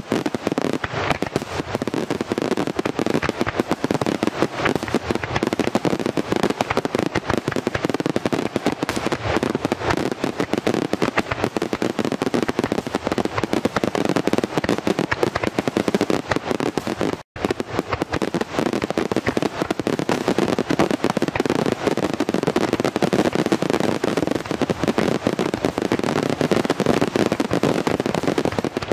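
A professional aerial fireworks display in a dense, continuous barrage: bursting shells and comets in overlapping bangs with no let-up. There is a split-second silent gap a little past halfway.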